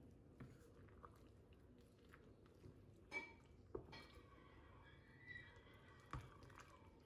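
Wooden spoon stirring chopped tomatoes in a stainless steel pot: faint wet squishing, with a few light knocks, the sharpest about three seconds in and another near the end.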